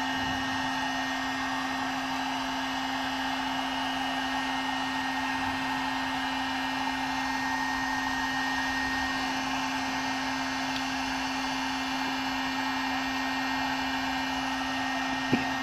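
Electric heat gun running steadily: an even fan-and-air hiss with a constant low hum. It cuts off shortly before the end.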